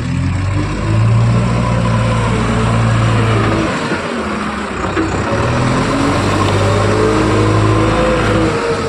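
Heavy diesel engine working under load, its pitch rising and falling as it is revved up and eased off, with a short drop in the engine note about four seconds in.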